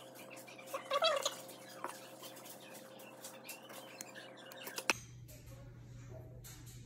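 Raw chicken liver being picked up and dropped into a plastic bowl: small wet clicks and taps. About a second in comes a short high-pitched cry, the loudest sound. Just before the end a sharp click, after which only a steady low hum remains.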